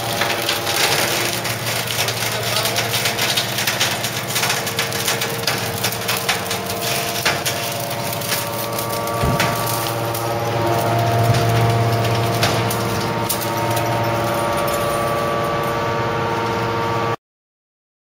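Enerpat AMB T250 hydraulic baler humming steadily as its ram pushes a compressed bale of steel mattress springs out of the chamber, the spring wire crackling and snapping throughout. The sound cuts off abruptly near the end.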